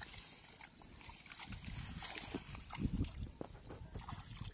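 Footsteps through wet grass and into shallow water at a lake's edge, with irregular thuds and sloshing that pick up about halfway through.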